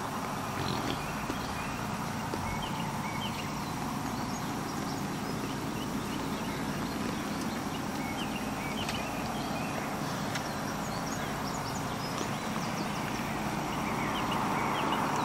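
A sounder of feral hogs feeding and jostling on bare dirt: grunting and scuffling hooves, with many short high squeals scattered throughout, growing a little louder near the end.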